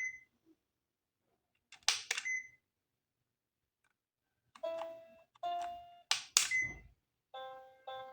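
Electronic toy sound effects: a pair of sharp clicks about two seconds in, each leaving a short ringing tone, then a short beeping tune. Two more clicks come in the middle of the tune, and it starts again near the end, with silent gaps between the bursts.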